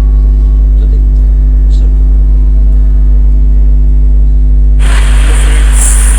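A loud, steady low hum with several steady overtones. Near the end a loud hiss joins it, and both cut off abruptly.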